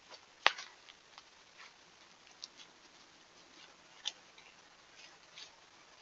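Deer stepping through leaf litter and brush: scattered light rustles and sharp snaps of twigs underfoot over a steady hiss, with the loudest snap about half a second in and another around four seconds.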